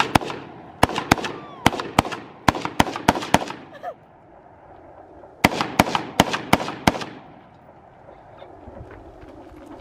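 Rapid gunfire: two long strings of shots, about five or six a second, separated by a pause of about two seconds.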